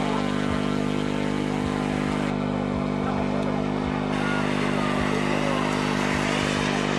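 Steady engine-like drone at a constant pitch, with a faint whine that rises and falls near the end.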